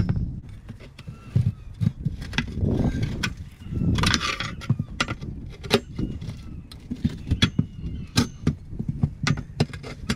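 Steel tire irons clanking and scraping against a steel tractor wheel rim as they pry the rear tire's bead off, a string of irregular metallic knocks and clinks.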